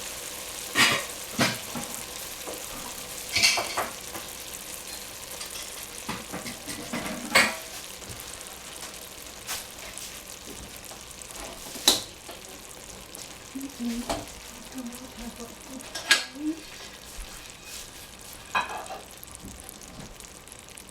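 Food sizzling in a hot pan with a steady hiss, broken by about seven sharp clinks and knocks of utensils against the pan and dishes.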